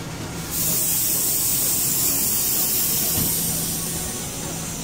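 Compressed air venting with a sudden loud hiss from the standing Standard Gauge Railway passenger train, starting about half a second in and fading near the end, over a steady low hum.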